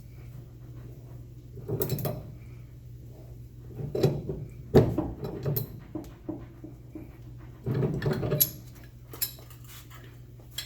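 Metal hand tools clanking and knocking in a few irregular strikes while working a seized, rusted shock absorber nut loose, over a steady low hum.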